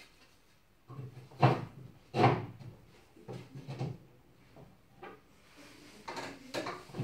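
Knocks and clunks of particleboard bed-frame parts being handled and fitted together, two loud knocks a little over a second in, then a run of lighter knocks and taps.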